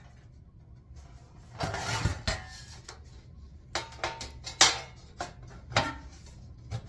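Sheet metal parts being handled and fitted together: a scrape of metal on metal, then a few sharp metallic clanks, the loudest about halfway through.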